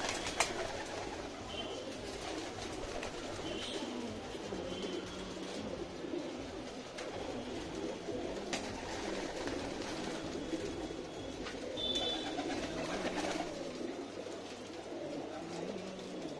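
Many domestic pigeons cooing together, their low coos overlapping without a break, with a few sharp clicks among them.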